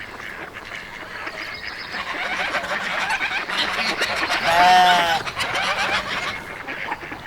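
Farm animals calling: a busy background of many small overlapping calls, with one loud, drawn-out call about four and a half seconds in.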